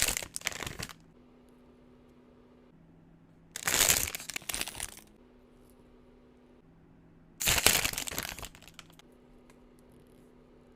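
Packaging being crinkled and crumpled by hand in three separate bursts, a few seconds apart.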